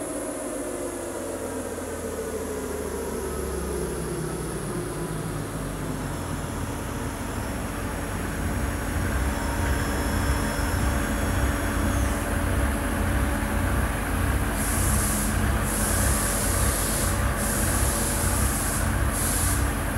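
A Mercedes OM606 six-cylinder turbo diesel in a Nissan Patrol pulling on a chassis dyno during a power run. The engine sound changes pitch over the first few seconds, then becomes a heavy pulsing rumble that gets steadily louder through the second half. A high hiss comes and goes in the last few seconds.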